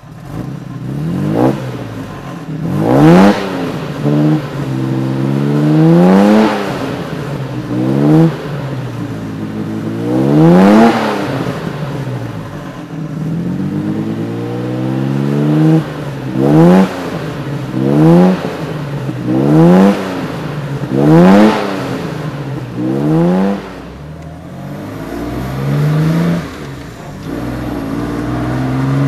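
1959 Jaguar XK150's 3.4-litre twin-cam straight-six engine idling and being revved about ten times, each blip of the throttle rising quickly and dropping back to idle.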